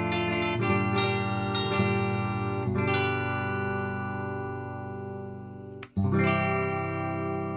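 Strummed guitar chords played on a homemade MIDI chord controller with touch-sensor strings, sounded through a MIDI sound module as a synthesized guitar voice. New chords are struck about half a second in, around three seconds in, and just after six seconds in, where the sound briefly drops out before the next chord rings.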